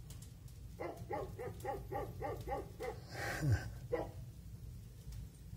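Dog barking in a quick, even run of about nine barks, roughly four a second, then one more bark a second later; a dog asking to be let into the house. A brief whoosh about three and a half seconds in.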